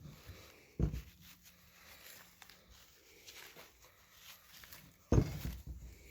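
Two dull thumps, about a second in and near the end, with faint clicks between.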